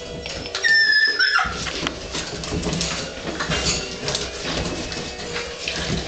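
Cattle dog puppies wrestling. About a second in, one puppy gives a single high-pitched squeal that drops at its end, among scuffling and small clicks of claws on the floor.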